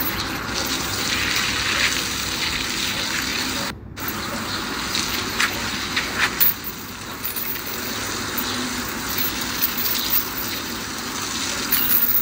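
Water from a hose spraying and splashing onto a wet tiled floor, a steady hiss; it cuts out for a moment about four seconds in.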